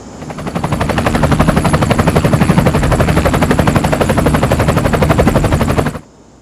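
Cartoon helicopter sound effect: rotor chopping rapidly and steadily, fading in at the start and cutting off suddenly about six seconds in.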